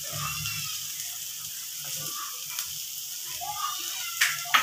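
Fish and potato mixture sizzling low in a non-stick kadai, with a wooden spatula knocking against the pan twice near the end.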